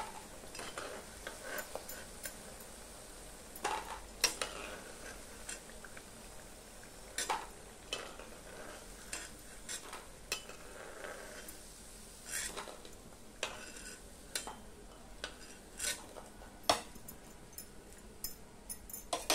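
Pakoras sizzling in hot oil in an iron kadai while a metal ladle scoops them out, clinking and scraping against the pan at irregular intervals, the sharpest knocks about four seconds in and near the end.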